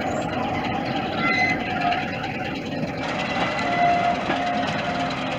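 Class 47 diesel-electric locomotive, with its Sulzer 12LDA28-C engine, running steadily as it hauls a train of coaches past.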